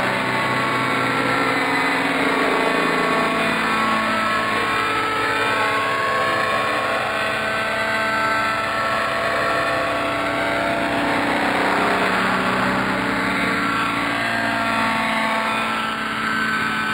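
Radio-controlled model helicopters (a T-Rex 600 and a Vario) hovering and manoeuvring. Their engines and rotors give a steady, layered whine whose pitch sweeps up and down as they move.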